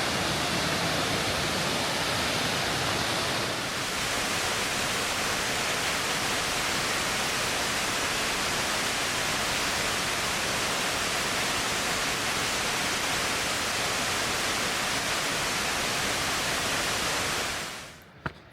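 Steady rush of a flowing river, an even hiss of running water. It fades out shortly before the end, and a faint click follows.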